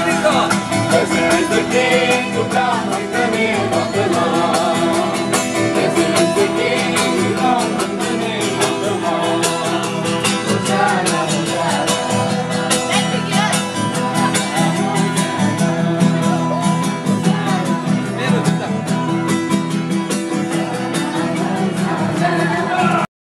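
A group of people singing together to an acoustic guitar. The sound cuts off abruptly near the end.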